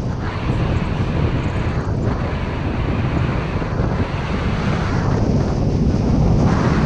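Wind rushing hard over the microphone of a paraglider in flight, a loud steady rumble. The higher hiss fades and comes back a few times as the airflow shifts.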